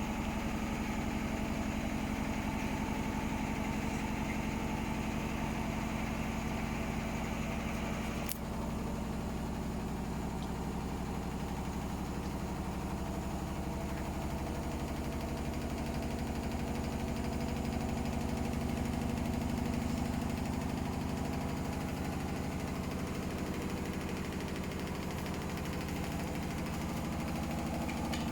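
Hotpoint Smart Tech washing machine on a very unbalanced spin: a steady hum with a fast pulsing shake beneath it. There is one short click about eight seconds in.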